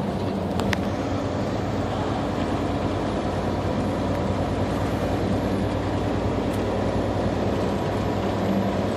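Diesel truck engine running steadily with road noise, heard from inside the cab, with a couple of faint clicks about half a second in.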